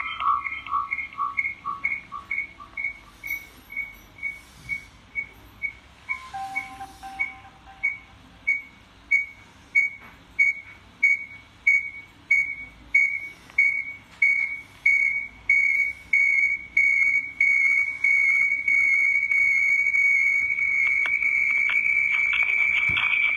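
High-pitched acoustic feedback whistle between two phones joined by a live camera stream with audio: a single tone pulses on and off, quickly at first, then about once or twice a second, and is held steady for the last few seconds. A lower second tone sounds with it for the first couple of seconds.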